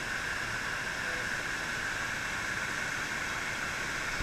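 Steady rushing of a waterfall pouring down onto rock and pool.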